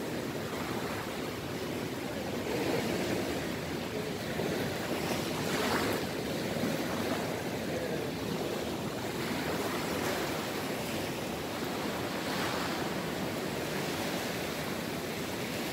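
Small waves breaking and washing up on a sandy, rocky beach, the surf swelling and falling back every few seconds and loudest about six seconds in.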